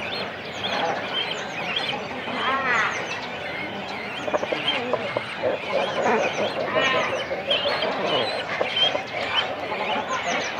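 Cormorant nesting colony at close range: chicks and adults calling on the nest in a dense chorus of overlapping short calls, many high-pitched with quick falling notes, and other birds calling in the background.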